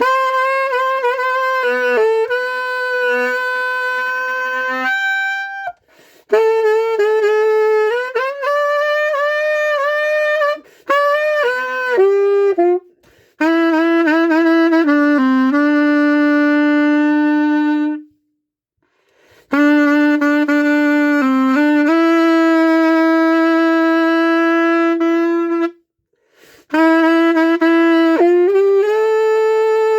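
Solo SML saxophone playing a slow song melody, with sustained notes in phrases broken by short breaths; the instrument is played before it goes in for repair.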